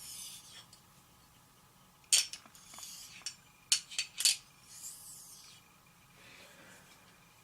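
Hard stones being handled and set down: a few sharp clicks and clinks, one about two seconds in and a quick cluster of three or four about a second later, with soft sliding scrapes between them.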